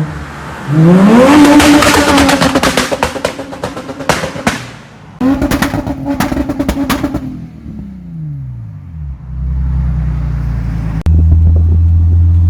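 Tuned 2008 Nissan Patrol engine revved hard twice, its exhaust note climbing steeply and holding high, then falling away. A steady low drone follows, louder from about eleven seconds in.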